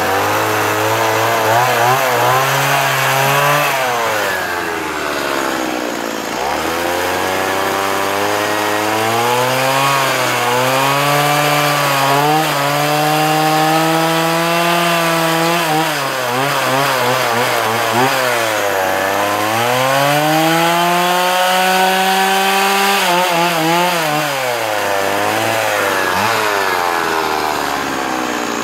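Stihl MS 170 two-stroke chainsaw cutting into a wooden post for carving, its engine pitch wavering under load and rising and falling as the throttle is worked. The engine drops back to a low pitch briefly several times: a few seconds in, about two-thirds of the way through, and near the end.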